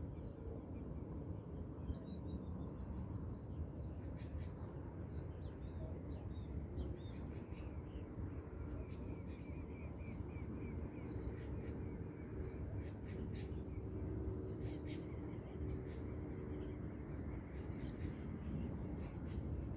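Many birds chirping and whistling together in a dawn chorus, with a fast trill of repeated notes about two seconds in and a lower run of repeated chirps from about eight to twelve seconds in, over a steady low background rumble.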